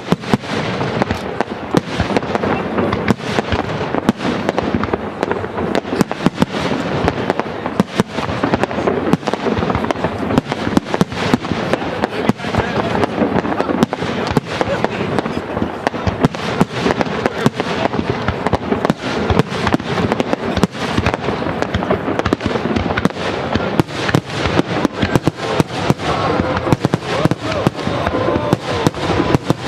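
Fireworks display: aerial shells bursting in rapid, near-continuous succession, many sharp bangs a second with no let-up.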